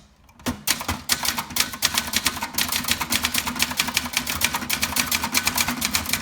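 1978 Brother Charger 11 manual portable typewriter being typed on fast: a quick, even run of key and typebar strikes against the platen, starting about half a second in.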